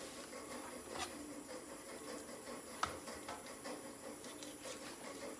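Faint knocks and taps of a large kitchen knife and a raw whole chicken being handled on a plastic cutting board, with a louder knock a little before the middle.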